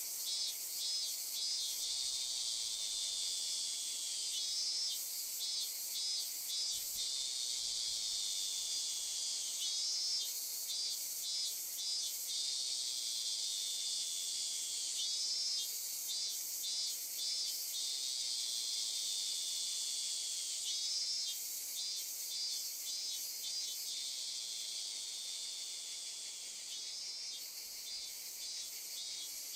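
Insect chorus: a steady, high-pitched buzzing drone with a short phrase of rapid chirps that recurs about every five seconds.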